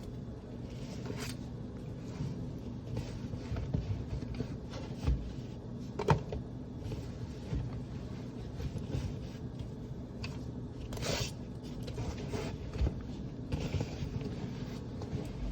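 Scattered handling noises over a steady low hum: light clicks, scrapes and rustles, with one sharp click about six seconds in and a longer scraping rustle around eleven seconds.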